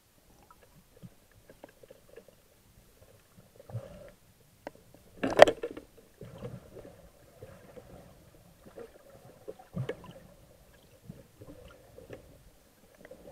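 Muffled knocks and water movement heard underwater through a waterproof camera housing, with one loud thump about five seconds in and a smaller one near ten seconds.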